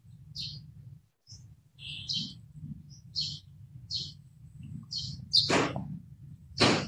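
Small birds chirping: short, high notes repeating about once a second over a low rumble. Near the end come two louder, harsh sounds about a second apart.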